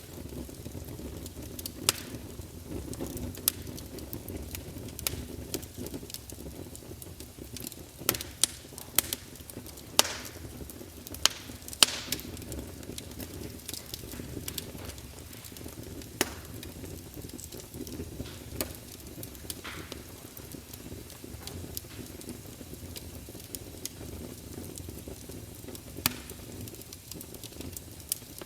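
Campfire burning: a steady low rumble of flames with irregular sharp crackles and pops of burning wood, a few louder pops clustered near the middle.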